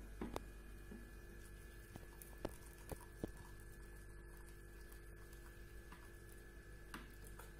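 Near silence: a faint, steady electrical hum, with a few soft clicks scattered through it.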